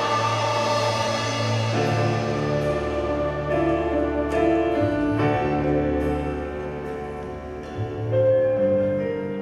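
Live ensemble music: a held chord fades within the first two seconds, and then a grand piano plays a slow passage of single struck notes over low sustained notes, swelling louder near the end.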